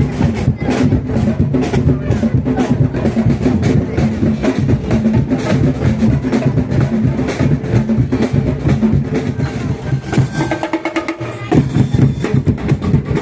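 Percussive music with a steady, busy drum beat and woody clicks; about ten seconds in the low drums drop out for a moment, then return.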